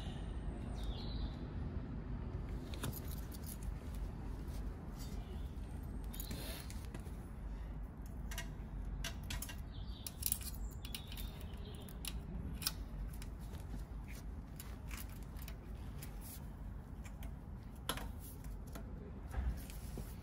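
Light metallic clicks and scrapes as exhaust springs are stretched and hooked onto the joints of a motorcycle's titanium exhaust with a spring puller. The clicks come irregularly, a few sharper ones among them, over a low steady rumble.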